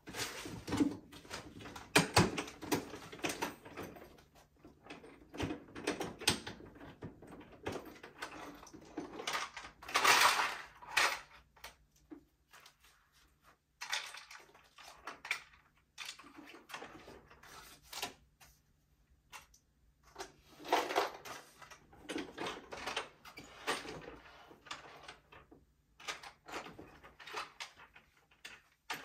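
Irregular knocks, clicks and rustling, as of objects being handled and set down, with a louder scraping rush about ten seconds in.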